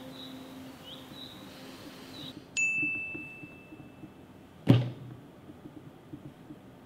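A single bright bell-like ding that rings and fades over about a second and a half. About two seconds later comes a sharp thump, the loudest sound here, of hands slapping down on a table.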